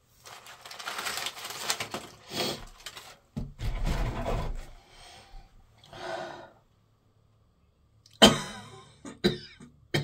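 A person with a pollen allergy coughing and clearing the throat, then sneezing loudly about eight seconds in, with two shorter bursts after it.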